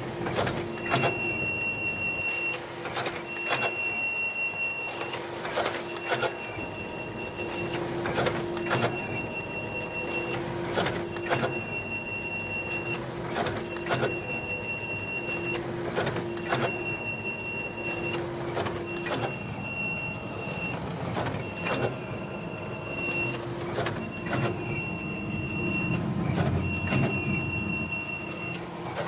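Konica Minolta FS-527 finisher making a loud, abnormal noise: a high-pitched squeal that repeats over and over, about once a second, each squeal ending in a click, under a lower steady hum.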